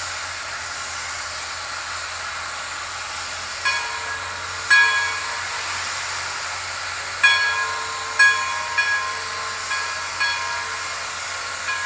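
Narrow-gauge steam locomotive standing with steam hissing steadily from around its cylinders, and its steam whistle sounding a series of blasts from about four seconds in, some short toots and a couple held for about a second.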